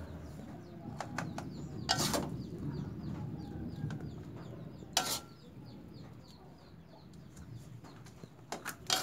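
Metal spatula scraping and knocking against a wok as fried noodles are lifted out and served onto plastic plates, with sharp knocks about two seconds in, about five seconds in, and again near the end.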